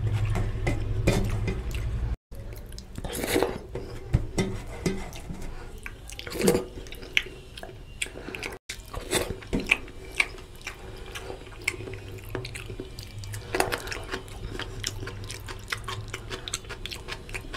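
Wet, sticky clicks and smacks of fingers scraping curry gravy across a steel plate and being licked and sucked clean, over a low steady hum.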